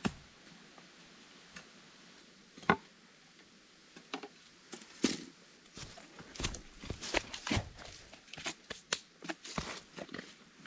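A sharp knock at the start and a louder one a few seconds in, then several seconds of crunching and rustling: footsteps and tools being handled on bare ground strewn with dry leaves.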